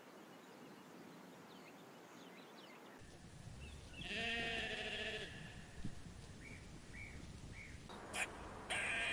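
A sheep bleats once, a loud wavering call lasting about a second, roughly four seconds in, followed by a few short high chirps. Near the end a sharp click and a brief high-pitched burst.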